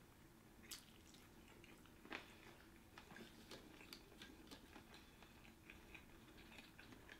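Faint close-up sounds of a person chewing sushi: soft wet mouth clicks and smacks scattered irregularly, with a sharper click about two seconds in.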